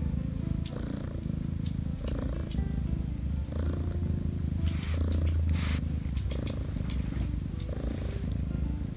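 Black Korean shorthair kitten purring continuously as its chin is stroked, the purr pulsing about once a second with its breathing. A brief rustle about five seconds in.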